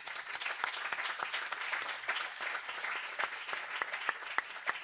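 Audience applause: many people clapping together, thinning toward the end so that single claps stand out.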